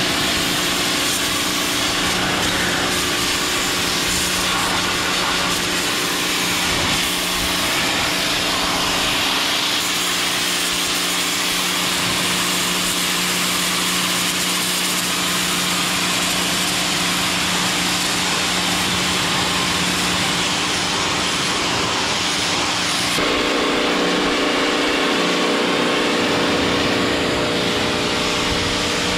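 2.2 kW Stanley SXP-V22 electric pressure washer running, its motor and pump humming steadily under the loud hiss of the high-pressure jet blasting mud off a car's wheel and sill. The hum and hiss change character about three-quarters of the way through.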